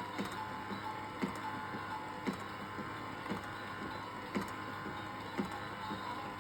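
Plastic toy knife tapping on a toy cutting board in a steady chopping rhythm, about two taps a second with every other tap louder, over a faint electronic toy tune.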